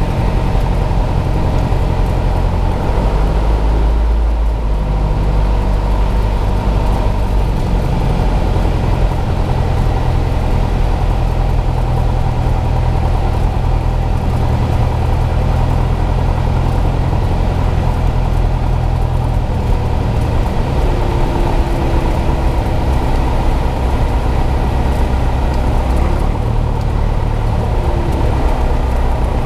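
Cessna 172M's four-cylinder Lycoming O-320 engine and propeller running steadily on final approach, heard inside the cockpit. The engine note changes about three to four seconds in, then holds steady.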